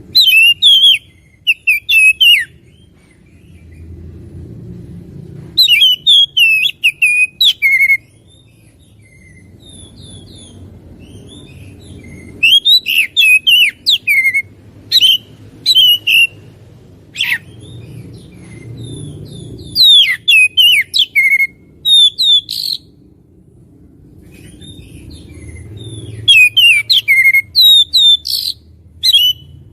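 Oriental magpie-robin (kacer) singing: loud bursts of varied, sliding whistled notes, each phrase a couple of seconds long and repeated every few seconds, with a faint low rumble in the gaps.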